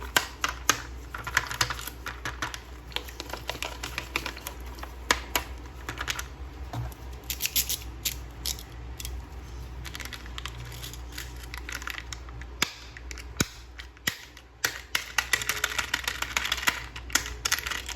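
Plastic toy parts being handled: many quick, irregular clicks and taps, with a faint steady low hum underneath.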